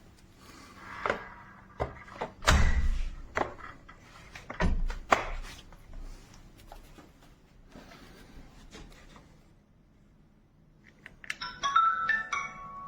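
Hard plastic parts of a wet-dry floor vacuum knocking and clicking as they are handled, with several loud thunks in the first half. Near the end, a short electronic chime of a few quick tones rings out and fades.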